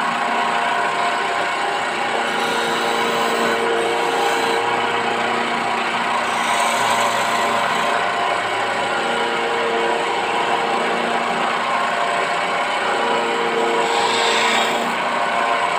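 Wood lathe's electric motor running steadily with a hum of several fixed tones while no cut is being made. Near the end, a turning chisel briefly meets the spinning teak with a short scraping hiss.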